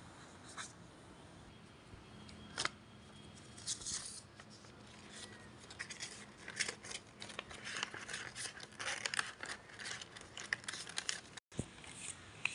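Sheets of coloured paper and card being handled and turned over: rustling with crisp crackling clicks, only a few at first and then dense from about four seconds in.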